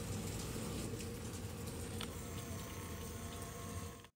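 Many hummingbirds' wings buzzing around nectar feeders, over a steady patter of rain. The sound cuts off abruptly at the very end.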